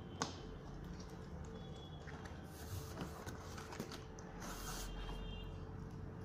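Handling of a cardboard TV carton: a sharp click about a quarter second in, then soft rustling and scraping of cardboard, foam and plastic wrap as the box is opened.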